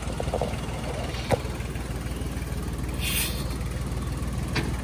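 Farm tractor's diesel engine idling steadily, with a sharp click about a second in and a brief hiss about three seconds in.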